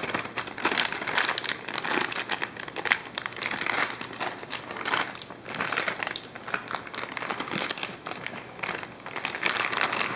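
Thin clear plastic bag crinkling as it is handled and opened, a continuous run of irregular crackles.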